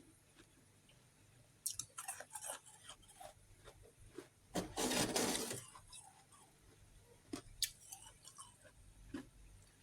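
Chewing and crunching chunks of refrozen freezer frost close to the microphone: scattered small crackles, then one loud crunching bite about halfway through, followed by a few sparse clicks.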